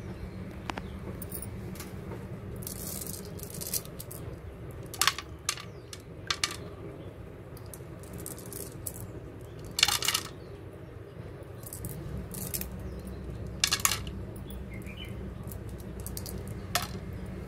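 Small coloured decorative pebbles clicking and clattering against each other as they are handled and dropped into a water-filled pot. There are a few scattered sharp clicks and short rattles, the loudest about ten seconds in, over a low steady rumble.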